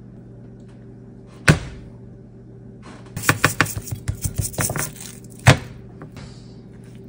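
Hands patting and rubbing seasoning into raw steaks on a plate: a quick run of wet slaps and clicks from about three to five seconds in. A steady low hum runs underneath, and there is a sharp knock about a second and a half in and another near five and a half seconds.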